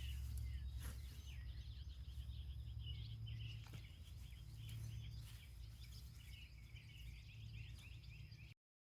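Birds chirping on and off in the background over a steady low rumble, with a faint steady high tone. Cuts off to silence near the end.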